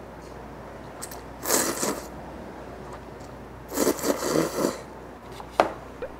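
Instant ramen noodles slurped up from a paper cup: a slurp about a second and a half in, then a longer, choppier slurp about four seconds in. A short sharp click follows near the end.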